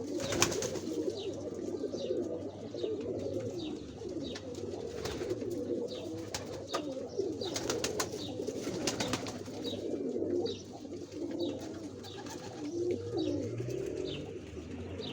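Many domestic pigeons cooing at once, their low coos overlapping without a break, with scattered sharp clicks and faint high chirps among them.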